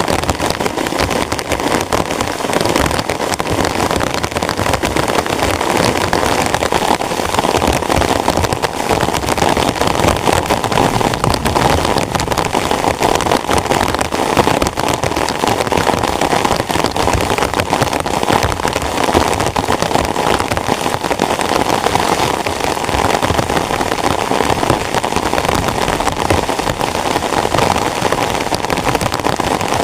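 Heavy rain falling steadily on a tent, a dense even pitter-patter of drops that keeps up without a break.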